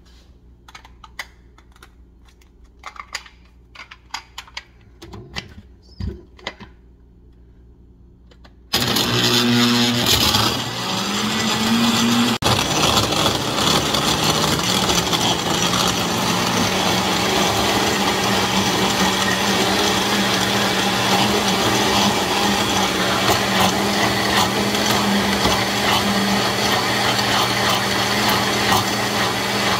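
Clicks and knocks of extra ice pieces going into a blender jar and the lid being fitted. Then, about nine seconds in, a countertop blender starts suddenly and crushes ice and pineapple chunks. Its pitch shifts for the first few seconds, then it runs steadily and loudly as the mixture turns to a smooth purée.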